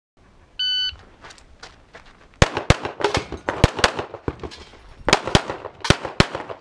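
A competition shot timer gives its start beep, a short steady tone. About two seconds later a pistol fires about ten sharp shots, mostly in quick pairs, with a short pause partway through as the shooter moves to new targets.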